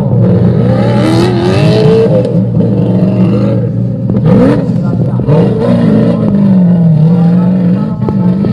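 Off-road buggy's engine running hard and revving as it powers up a dirt hill climb, with spectators' voices shouting over it.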